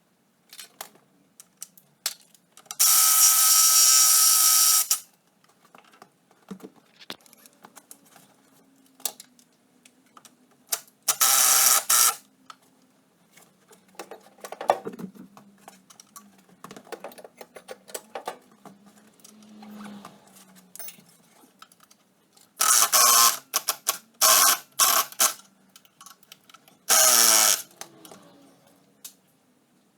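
Workshop teardown sounds: several loud bursts of a steady motorised whine from a power tool undoing fasteners, with clicks and metal clatter of parts being handled in between.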